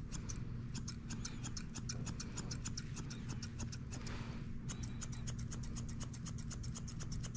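Grooming shears snipping through a Shih Tzu puppy's long coat: quick repeated snips, several a second, with a short break about four and a half seconds in.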